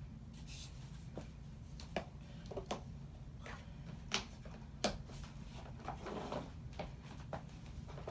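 Scattered light clicks and knocks, a dozen or so, over a steady low hum in a small room.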